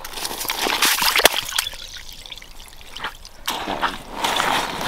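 Water splashing and sloshing in an ice-fishing hole as a largemouth bass is let back down into it, in several short bursts.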